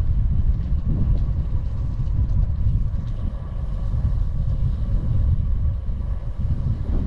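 Wind buffeting the microphone while riding a bicycle downhill: a loud, steady low rumble.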